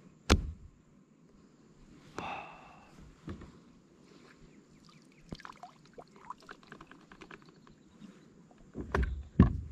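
Knocks and thumps on an aluminium boat deck as a landing net is picked up and handled, with one sharp knock right at the start, scattered light clicks in the middle, and a few heavier thumps near the end.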